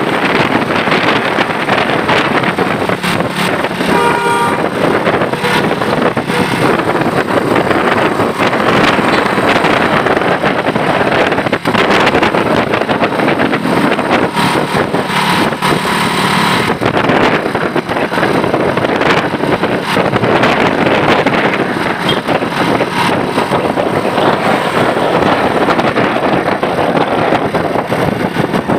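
Loud, steady road-traffic noise from vehicles passing close by. A brief multi-tone bus horn toot (a telolet horn) sounds about four seconds in, and faint horn tones return around the middle.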